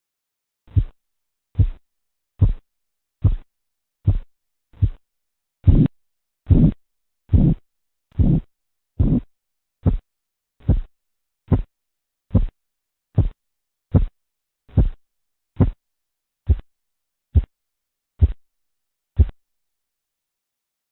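Korotkoff sounds heard through a stethoscope over the arm artery as a blood pressure cuff deflates: about twenty pulse taps, a little over one a second. They grow broader and fuller through the middle, turn crisp and short again, and stop after the last tap near the end. The first tap marks the systolic pressure and the point where they vanish marks the diastolic.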